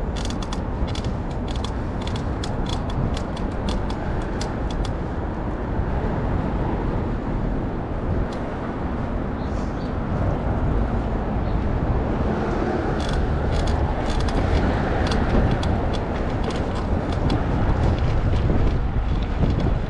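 Steady low rumble of city street traffic and tyres on pavement heard from a moving bicycle, with runs of quick sharp clicks through the first few seconds and again about two-thirds of the way through.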